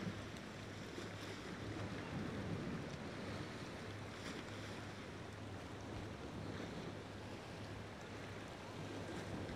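Small sea waves washing against shoreline rocks, with a steady low hum underneath.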